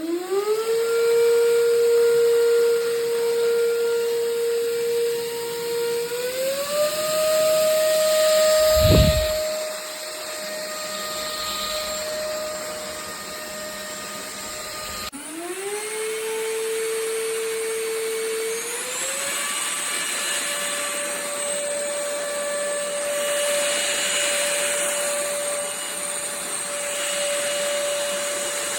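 VersLife S6 Pro cordless stick vacuum running: its motor whine spins up, then steps up to a higher speed, with a short low thump partway through. About halfway it cuts off, spins straight back up, and steps up to the higher speed again.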